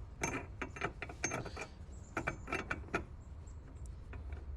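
Quick run of small clicks, taps and rattles of an LED headlight bulb being handled and seated into the headlight housing's bulb socket, busiest in the first three seconds and thinning out after.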